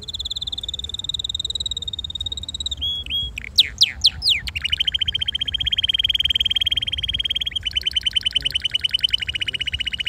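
Red canary singing: a long high rolling trill, a few quick sweeping notes about three seconds in, then two long rapid trills, the second a little slower.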